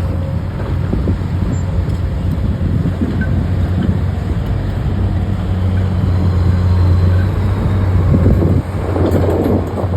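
A vehicle's engine running steadily with a deep drone, with rougher wind-like noise on the microphone near the end.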